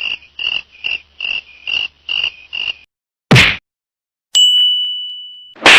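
A string of meme sound effects: seven short, evenly spaced chirps, then a short hard smack, then a bright bell ding that rings out and fades over about a second, and another hard hit at the very end.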